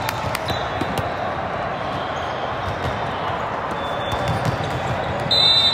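Indoor volleyball tournament hall din: a steady murmur of many voices, with scattered smacks and bounces of volleyballs from the surrounding courts. Near the end comes a short high whistle blast, the loudest moment.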